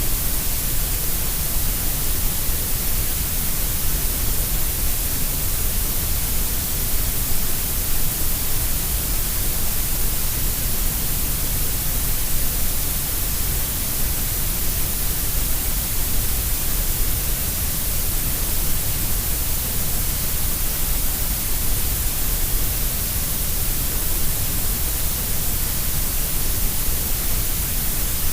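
Grey noise: a steady, unchanging synthetic hiss, fuller in the deep low end and the high treble than in the middle, shaped to sound equally loud across the range for masking tinnitus and background sounds.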